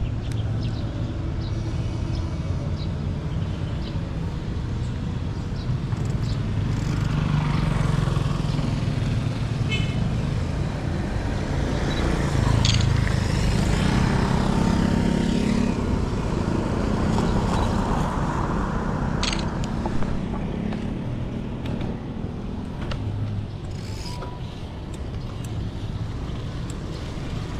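Road traffic passing over a steady low rumble, heard while riding a mountain bike. The traffic is loudest in the middle, and a few sharp clicks come through.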